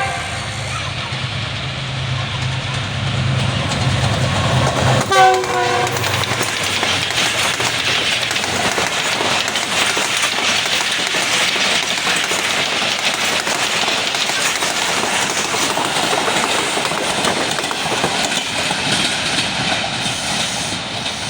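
Pakistan Railways passenger train passing: a diesel locomotive's engine hum with its horn sounding briefly at the start and again about five seconds in, then the coaches going by with a steady rattle of wheels on the rails.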